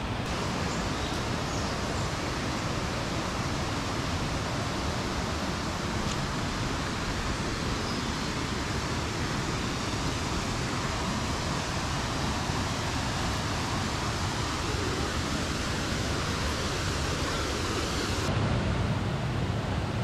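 Steady rush of flowing stream water, an even hiss. About two seconds before the end it changes abruptly to a deeper, fuller rush of water over a small cascade.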